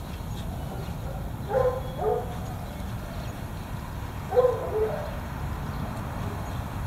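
Dog barking: two pairs of short barks, about a second and a half in and again near the middle, over a steady low rumble.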